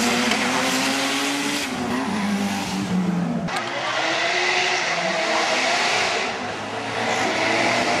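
Car engines running and revving at a track day, their pitch rising and falling. The sound changes abruptly about three and a half seconds in, and another engine carries on.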